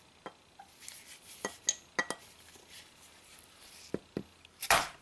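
Light metal clicks and clinks as a valve keeper remover tool is seated on a valve spring retainer of a cylinder head, then a hammer strikes the tool near the end: one hard, ringing whack that drives the spring down and frees the valve keepers.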